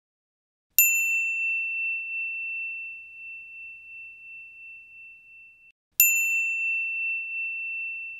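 Two bell-like dings, about a second in and about six seconds in, each a single clear high tone that rings on and slowly fades; the first is cut off just before the second.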